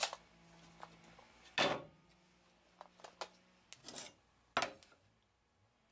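Knocks and clatters of a wooden workpiece and hand tools being handled on a saw table, with two louder knocks about a second and a half and four and a half seconds in and a few lighter clicks between them.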